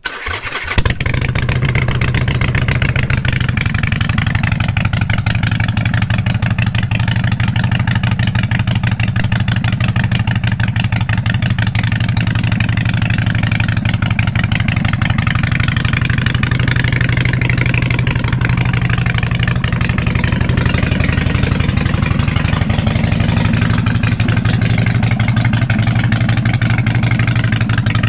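Harley-Davidson Sportster 883's air-cooled V-twin started through new LAF drag pipes, catching about a second in and settling into a loud, steady idle.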